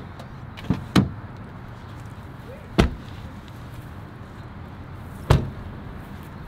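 Car door knocks over a faint steady outdoor background as the driver's door of a sedan is opened and shut: four short sharp knocks, the loudest about a second in and about a second before the end.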